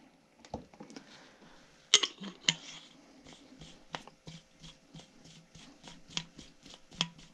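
Fingers rubbing worm oil around the inside rim of an aluminum hand-injector barrel: a quick, even run of light rubbing squeaks and clicks, with a few sharper knocks of metal being handled, about two seconds in and again near the end.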